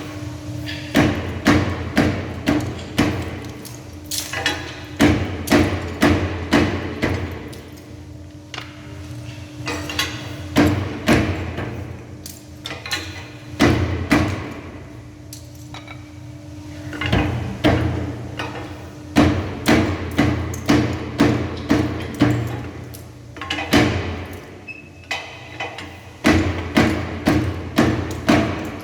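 Decorative stone splitting machine striking stone in runs of sharp cracking knocks, about two strikes a second, with short pauses between runs. Under the strikes its electric motor hums steadily.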